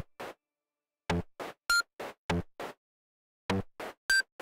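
Electronic sound-design soundtrack made of short, clipped glitch hits about three a second, deep thuds alternating with hissy ticks, in groups broken by brief silences. A high beep sounds about two seconds in and again near the end.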